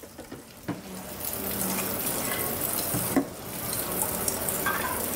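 Coconut milk pouring in a stream from a bucket through a strainer into a large aluminium pot: a steady splashing hiss that starts about a second in and breaks off briefly a little past the middle before going on.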